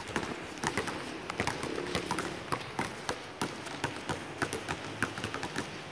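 Several basketballs being dribbled at once on a concrete court: many sharp bounces that overlap with no steady rhythm.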